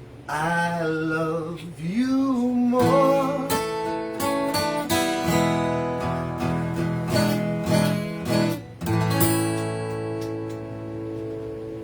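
Acoustic guitar strumming the closing chords of a song, with a held, wavering sung note over the first few seconds. A last chord is struck about nine seconds in and left to ring and fade.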